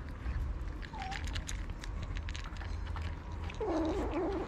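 Cats crunching dry kibble: many quick, irregular crunching clicks over a low steady rumble. Near the end comes a short wavering cry.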